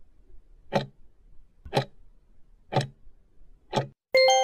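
Countdown-timer clock-tick sound effect, one sharp tick a second, four ticks. Near the end a bright multi-tone chime rings and fades as the timer reaches zero, marking time up.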